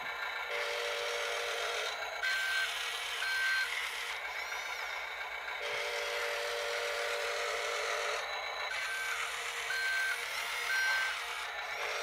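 Sound module of a Double E 1:20 scale RC road roller playing its simulated engine running steadily through a small speaker as the model drives, with a high reversing-alarm style beep sounding about once a second in short runs of two or three.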